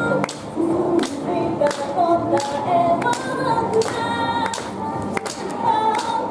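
A young woman singing live into a handheld microphone over music with a steady beat.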